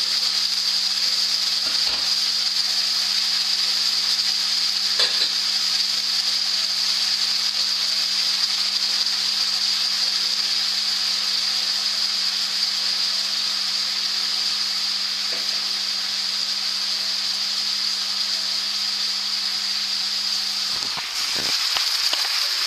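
Meat pieces in sauce frying in a frying pan, a steady loud sizzle, with a low steady hum underneath that stops near the end.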